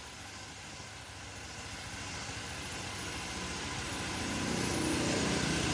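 Motor scooter engine idling steadily and getting gradually louder, with a steadier hum coming in after about four seconds.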